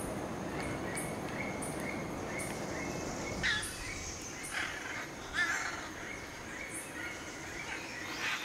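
Macaws squawking: several harsh, raspy calls starting about three and a half seconds in, over faint chirping that repeats about twice a second.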